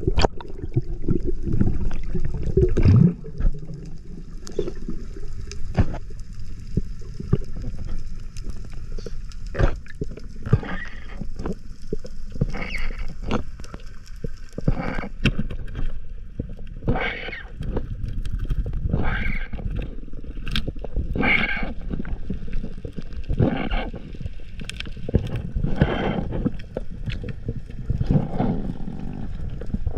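Underwater sound heard through a submerged action camera's housing: a low steady water rumble with many short bubbling bursts and clicks, more of them in the second half.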